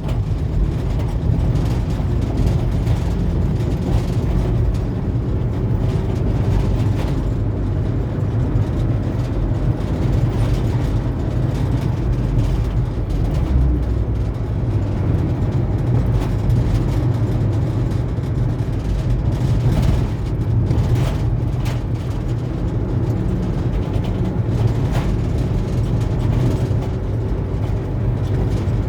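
Steady low engine rumble and road noise of a moving vehicle, heard from on board.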